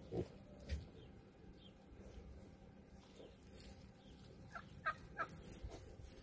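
Hereford–Berkshire cross piglets rooting in straw and wet ground: faint rustling with a couple of soft knocks near the start. About four and a half seconds in come three short squeaky grunts in quick succession.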